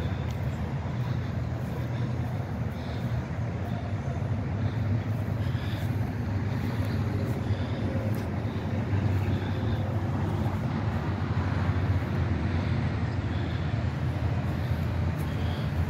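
Steady low rumble of road traffic, with faint short high chirps now and then.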